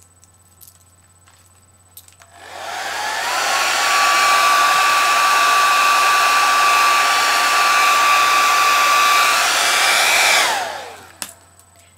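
Handheld hair dryer switched on about two seconds in, its motor whine rising as it spins up, then blowing steadily: a high whine over a loud rush of air. Near the end it is switched off and the whine falls away as the motor spins down.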